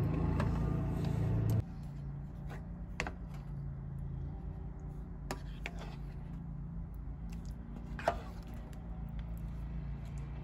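Wooden spoon stirring thick curry in a metal pot, with a few light, separate knocks of the spoon against the pot, over a steady low hum.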